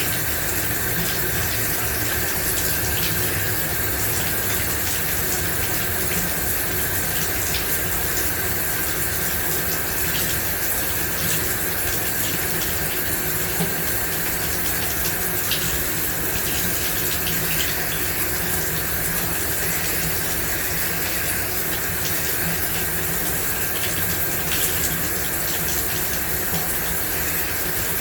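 Shower running: a steady spray of water with small faint splashes.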